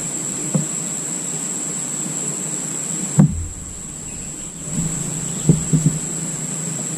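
Insects droning in a steady high-pitched whine, with a few dull knocks, the loudest about three seconds in.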